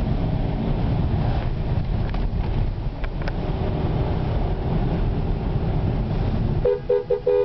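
Steady low rumble of a car's engine and tyres on a wet road, heard from inside the cabin. Near the end a car horn sounds a quick run of about six short toots.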